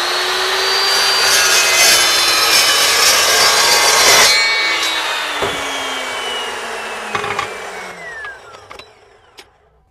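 Evolution S355 14-inch cold-cut saw cutting through steel flat bar: the motor is already up to speed, the carbide-toothed blade chews loudly through the bar for about three seconds, and a little after 4 s the cut finishes. The motor is then released and the blade winds down with a slowly falling whine over several seconds.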